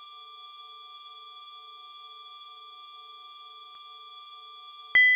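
Loading-bar sound effect: a steady electronic tone made of several high pitches with a faint pulsing beneath it, ending about five seconds in with a single bright ding that rings and fades, the completion chime.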